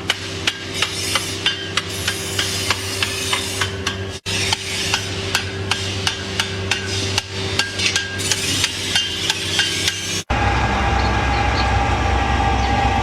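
Blacksmith's hammer striking steel, about two to three blows a second, while a hoe is being forged, over a steady low hum. Near the end the blows cut off and a louder steady mechanical drone with a held tone takes over.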